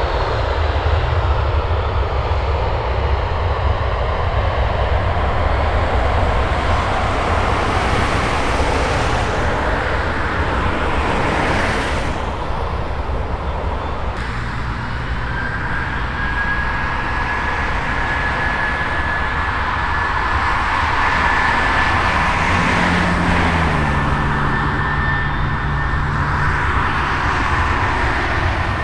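Engines of Airbus A320-family jet airliners running loud and steady over a deep rumble. About halfway through the sound switches to a second aircraft, with a high engine whine that creeps slowly up in pitch.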